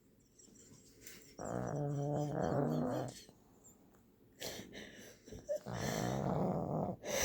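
Pug snoring in her sleep: two long snores of about a second and a half each, a few seconds apart, with softer breathing between.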